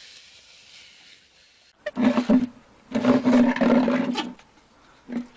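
A cat growling from under an upturned terracotta flower pot, in three drawn-out bouts: a short one about two seconds in, a long one, and another starting near the end.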